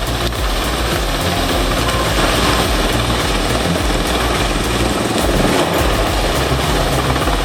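A large engine-driven machine running steadily under load, with a dense, loud mechanical noise over a deep low rumble.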